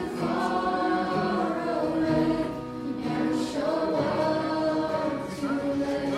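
A group of young voices singing a gospel song with instrumental accompaniment, in two long sung phrases.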